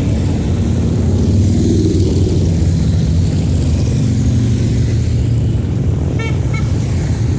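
A procession of motorcycles riding past, their engines running loud and steady.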